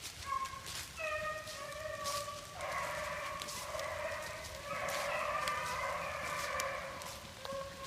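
A pack of rabbit hounds baying in drawn-out, overlapping howls as they run a rabbit's trail. Several voices join in from partway through.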